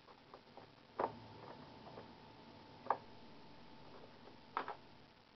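Cash register keys being pressed: a handful of sharp clicks, the loudest about a second in, near three seconds, and a quick double click near the end, over a faint steady hum.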